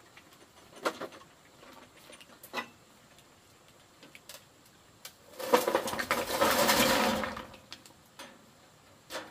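Building work with stone and cement: a few sharp knocks, and a little past halfway about two seconds of loud scraping noise.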